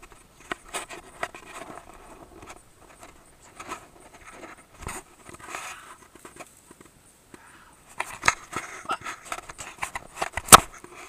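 Handling noise on a small action camera: irregular clicks, scrapes and rustles as hands work at it close to the microphone, growing busier near the end, with one loud knock just before the end.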